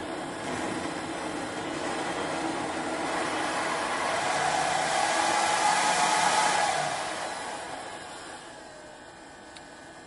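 Hair dryer's fan motor, run on its own variac, blowing air through the burning, overheated heater end. The rush starts suddenly, swells over about six seconds, then dies away.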